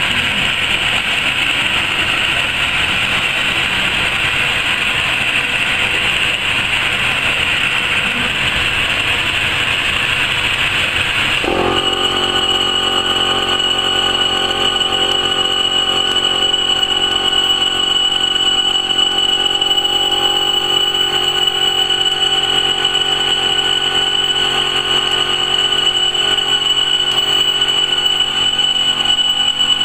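Laser fabric-cutting machine running: a steady machine noise that changes abruptly about a third of the way in to a steadier hum with a high, constant whine.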